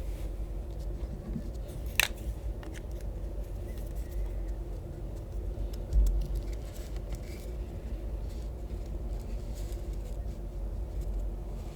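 Pink felt-tip highlighter being drawn across paper, making faint scratchy strokes over a steady low rumble. There is a sharp click about two seconds in and a thump about six seconds in.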